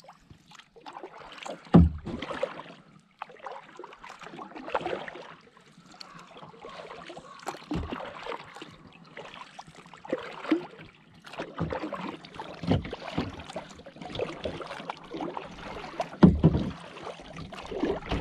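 Kayak paddling on calm water: a double-bladed paddle dipping and pulling in uneven strokes, with splashing and dripping water. A few dull thumps come through, about two seconds in, near the middle and near the end.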